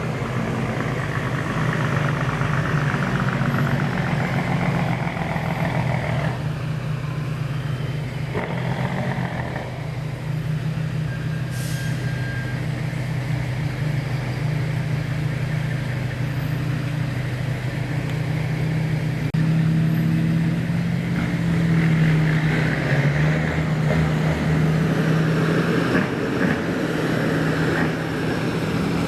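Semi-truck's diesel engine running steadily, its pitch shifting a few times and getting louder about two-thirds of the way through.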